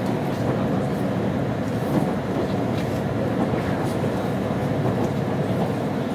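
Steady running rumble of a JR Central HC85 hybrid express train at speed, heard from inside the passenger car, with a few faint clicks from the wheels on the track.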